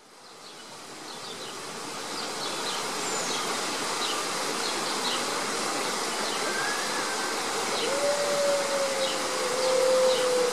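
A steady background hiss with short high chirps, then about eight seconds in a Hudson Bay wolf (a grey wolf subspecies) starts a long howl that holds and slowly falls in pitch.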